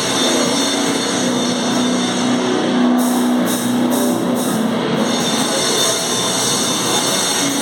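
A live noise metal band playing: a loud, dense wall of distorted noise over a steady low drone, with a few pulses in the high hiss about three to five seconds in.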